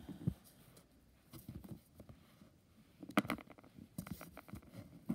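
Soft rustling and light taps as fingers fold and press glued cotton fabric over a paper template on a sheet of paper, with a short cluster of sharper clicks about three seconds in.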